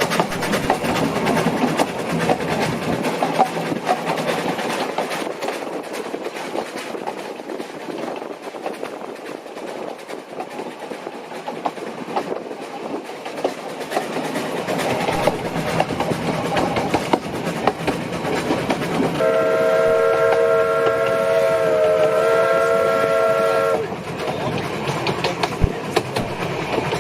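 Narrow-gauge steam train running on the rails, its whistle sounding once about three-quarters of the way in: a steady chord of several notes held for about four and a half seconds.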